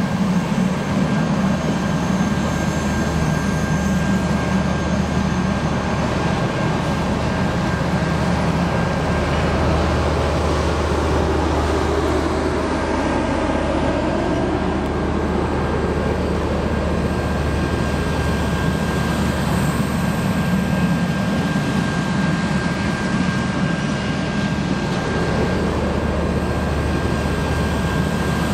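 Passenger cars of a steam excursion train rolling past on the track, giving a steady rumble with a thin, steady high whine over it.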